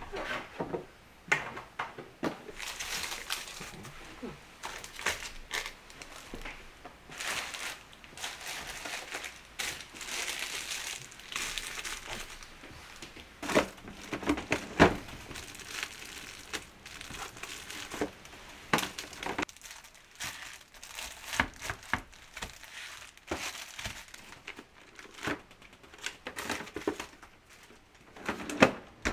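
Plastic packaging crinkling and rustling as it is handled, in repeated spells, with scattered light clicks and knocks.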